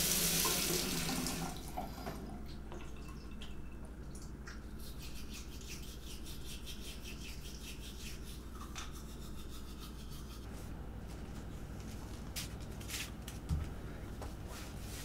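Tap water running into a bathroom sink for the first second or so, then a toothbrush scrubbing teeth in fast, even strokes over a steady low hum. A single soft thump near the end.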